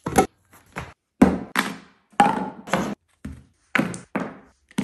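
A quick series of knocks, about two a second, as items such as a bag and a plastic spray bottle are set down on a wooden plank floor.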